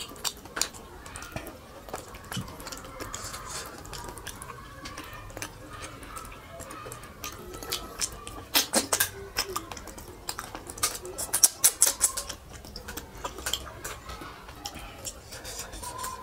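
Close-up eating sounds of a person eating rice and fish curry by hand: fingers squelching through the rice on the plate, then wet smacking and chewing clicks from the mouth, loudest about eight to twelve seconds in.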